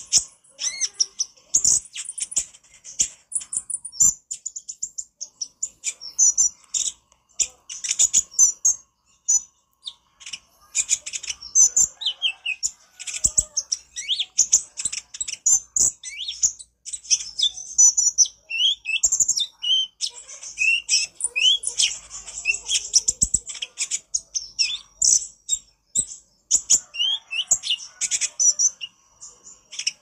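Male Van Hasselt's sunbird (kolibri ninja) singing a fast, chattering song of high, rapid chirps and trills, in bursts with short pauses, some notes sliding downward.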